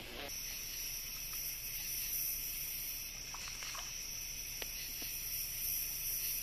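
Steady, high-pitched chorus of night insects, with a few faint ticks about two-thirds of the way through.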